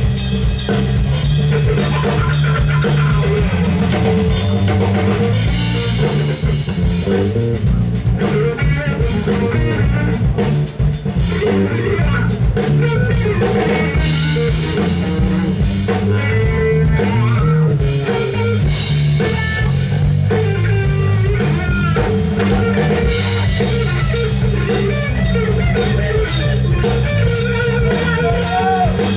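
Live rock trio playing an instrumental: electric guitar, electric bass and drum kit together, loud and continuous.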